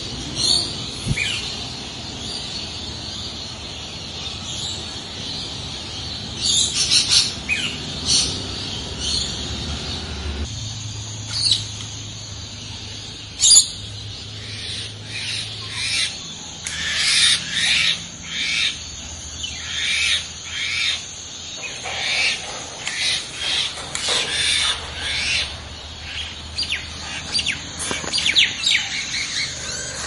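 Birds chirping and calling in short, high notes over a steady outdoor background, the calls coming thicker and faster in the second half.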